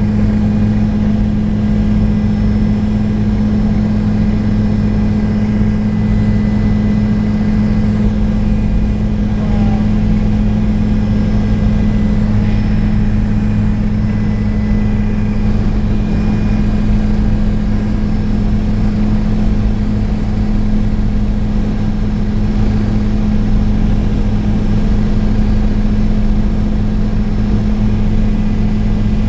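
Steady, loud drone of an aircraft's engine heard from inside the cabin, a constant low hum that holds the same pitch throughout.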